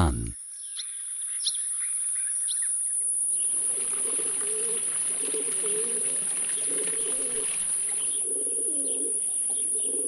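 Small birds chirping, then from about three seconds in, pigeons cooing over the steady splash of a fountain's falling water. A thin, steady high whine runs underneath throughout.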